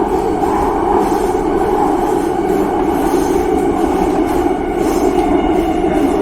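Subway train running: a steady, loud, continuous noise with no let-up.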